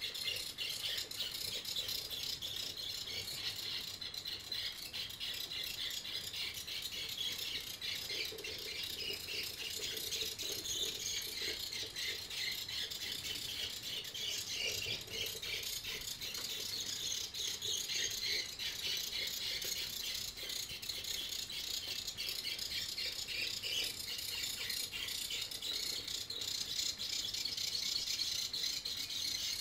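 Small geared DC motors of a CamJam EduKit #3 robot with a Meccano chassis running as it drives itself along a line: a continuous, high-pitched rattling buzz.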